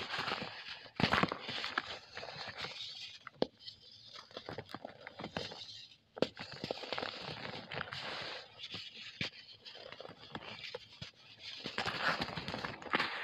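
Hands crushing and crumbling lumps of dry pure cement. The result is a gritty crunching with many irregular sharp crackles as the chunks break, and powder and crumbs falling back into the tub.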